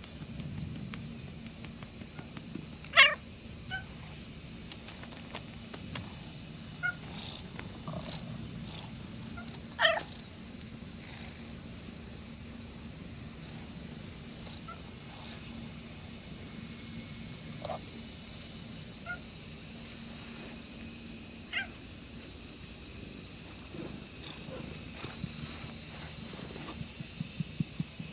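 Stray cat purring while it is stroked, with a few short meows, the loudest about three and ten seconds in.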